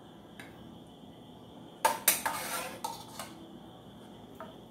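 Metal spoon clinking and scraping against an enamel pot while spooning out a thick sausage-and-tomato filling: a light click, a cluster of louder clinks about two seconds in, then a couple of single clinks.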